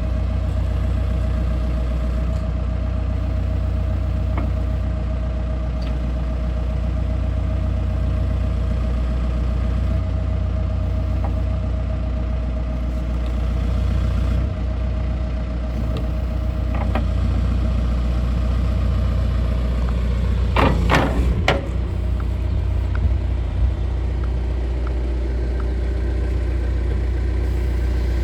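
John Deere 310G backhoe's diesel engine idling steadily, with a short cluster of metallic clanks about twenty seconds in.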